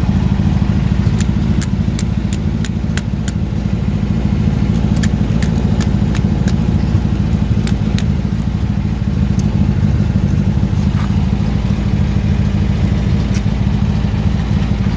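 Steady low drone of an idling vehicle engine, with a string of sharp metallic clicks from a racing harness's latch and adjusters being handled and tightened. Most of the clicks come in the first half.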